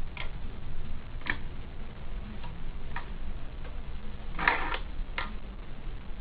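Hand-press plastic-bag heat sealer and cutter clicking as it is worked: a string of sharp, irregular clicks, with a louder, fuller clack about four and a half seconds in, over a low steady hum.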